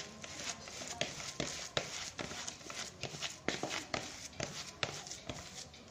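Spoon scraping and knocking against a plastic bowl while stirring a damp, crumbly pellet bait mix, in uneven strokes about two or three a second.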